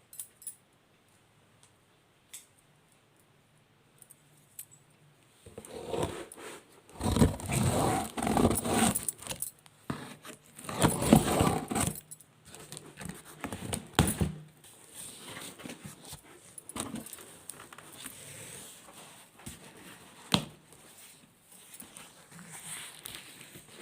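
Packaging of a new electric water heater being handled and opened. A few faint clicks, then from about five seconds in, loud bursts of rustling, crinkling and scraping of cardboard and plastic wrapping, with sharp knocks now and then.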